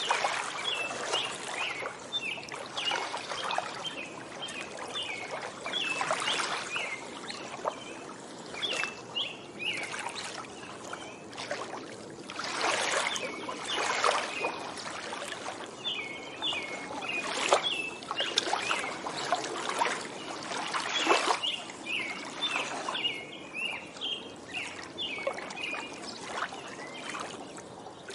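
Small waves lapping and splashing irregularly at a lakeshore, with songbirds chirping in quick bouts of short, high notes over the top.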